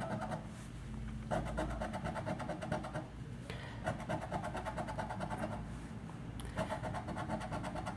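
A coin scraping the coating off a scratch card in three spells of quick back-and-forth strokes, with short pauses between them.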